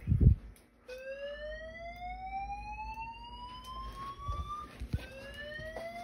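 Voice-evacuation fire alarm speaker sounding a slow whoop: a tone rising steadily in pitch for nearly four seconds, with the next rise starting about five seconds in. A thump comes right at the start.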